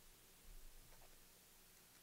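Near silence: faint room tone, with one soft low thump about half a second in and a faint click a moment later.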